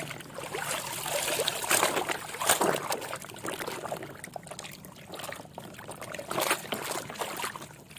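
Water trickling and splashing over a muddy plastic toy vehicle as it is washed, with several short, sharp splashes or knocks along the way.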